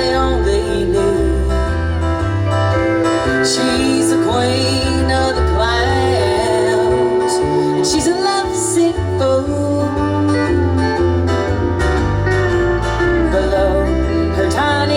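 Country music from a band: a steady, pulsing bass line under guitar and a lead melody that slides and wavers in pitch.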